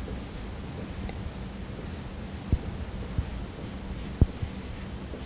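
Dry-erase marker writing on a whiteboard: short, scratchy strokes in quick succession, with a few light knocks, the loudest about four seconds in.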